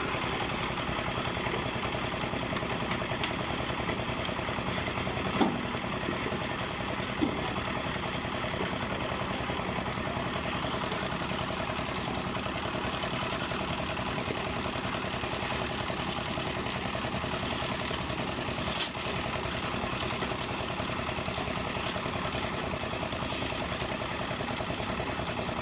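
An engine running steadily at a constant speed, with a few sharp knocks over it.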